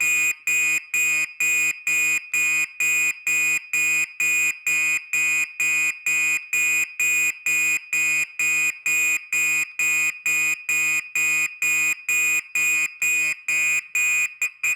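Gentex SHG-24-15/75WR fire alarm horn (older horn) sounding in march time: a loud, harsh horn tone pulsing on and off at about two and a half beats a second. It cuts off abruptly at the very end.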